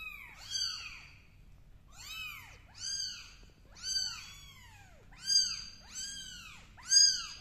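Young kittens mewing over and over: about a dozen short, high-pitched mews, each rising and then falling in pitch, the loudest near the end.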